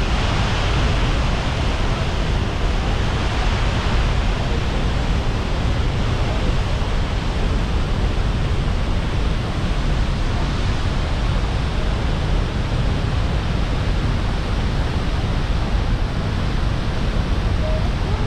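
Steady rushing of the Horseshoe Falls, a huge volume of water pouring into the gorge, as one unbroken loud noise heavy in the low end.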